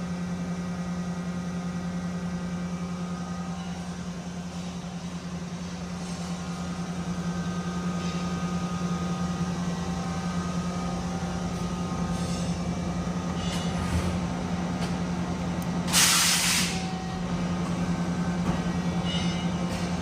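Okuma Multus B400 II CNC turning center running under power: a steady machine hum with faint steady whirring tones above it. A short, loud hiss of air comes about sixteen seconds in, with a few faint clicks shortly before it.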